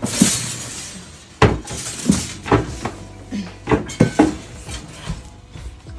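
A crash with a shattering, clattering sound at the start, then a sharp knock about a second and a half in and several smaller knocks and clatters.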